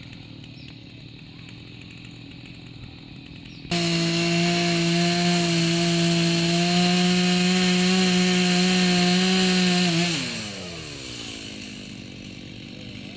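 Chainsaw idling, then opened up suddenly to full throttle and held at a steady high engine pitch for about six seconds, before the revs drop back down to idle.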